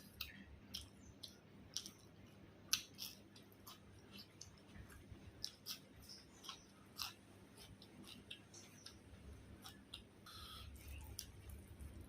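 Close-miked eating sounds: faint, irregular wet clicks and smacks of a mouth chewing food.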